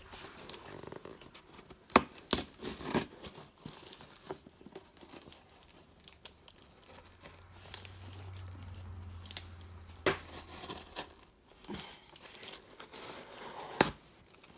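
A cardboard shipping box being opened with a safety box cutter: packaging tearing and crinkling, with several sharp clicks, the loudest about two seconds in and near the end.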